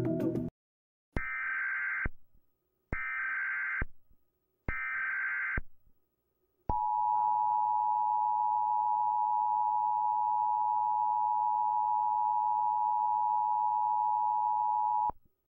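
Emergency Alert System tones opening an Amber child abduction alert. Three separate one-second bursts of SAME digital header data come first. Then the two-tone attention signal, a steady dual tone, holds for about eight seconds and cuts off suddenly.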